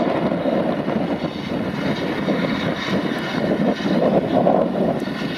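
Tractor engine running steadily as the tractor works across a grass field, a continuous rumbling drone with no breaks.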